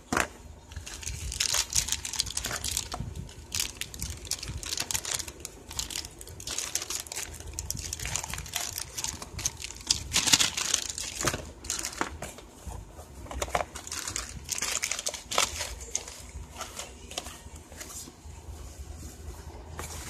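Cardboard box packaging being handled: irregular crinkling, scraping and small knocks as its flaps are moved.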